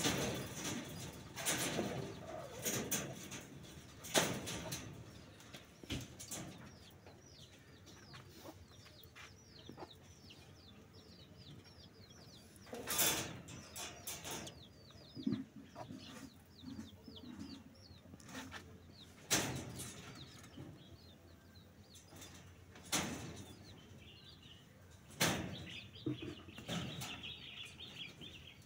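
Rabbits scuffling in a wire-mesh hutch, with a handful of sharp knocks and rattles spread through. Small birds chirp steadily in the background, busiest in the middle.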